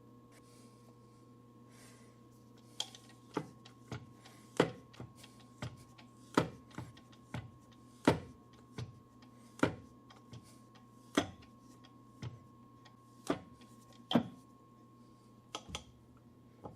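Irregular metallic clicks and clanks of tools and parts being handled at a metal lathe, the loudest about four and a half and eight seconds in, over a faint steady machine hum.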